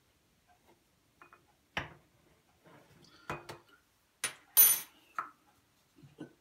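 Kitchenware being picked up and set down on a countertop: a string of separate clinks and knocks, the loudest one, with a bright ring, about two-thirds of the way through.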